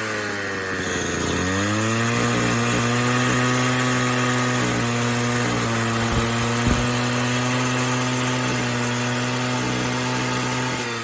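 Homelite XL-98 two-stroke cut-off saw running at high revs. The engine pitch dips and climbs back about a second in, holds steady, and starts to fall right at the end, with two short knocks around the middle.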